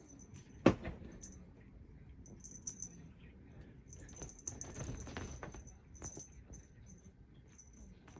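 A small bell jingling in short, irregular shakes, with a sharp thump about a second in and a few softer knocks.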